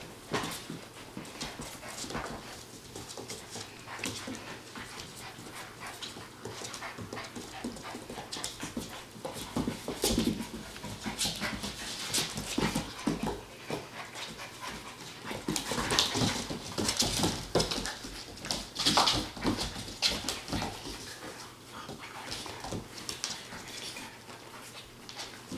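Standard poodle puppies playing, with small puppy vocal sounds over irregular scrabbling and clicking of paws and claws on a wooden floor. The activity is loudest about two-thirds through.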